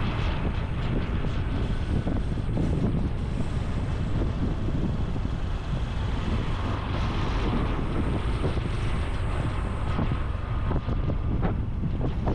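Honda Super Cub C125's single-cylinder four-stroke engine and exhaust running steadily under way, with wind buffeting the microphone.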